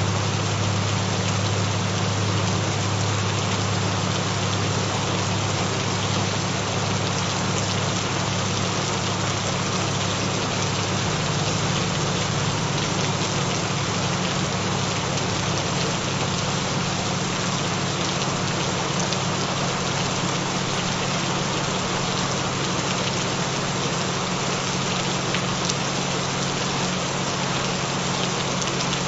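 Steady rain falling, an even patter, with several steady low humming tones underneath: the binaural frequency tones mixed into the track.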